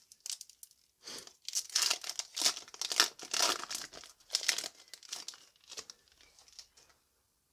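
Foil Yu-Gi-Oh! booster pack wrapper being torn open and crinkled as the cards are pulled out of it: a run of irregular rustles, loudest in the middle, that tails off and stops about seven seconds in.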